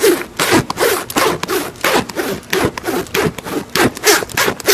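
Horse rubbing its head against a person's jacket: a rhythmic rasping scrape of hair on fabric, about three strokes a second.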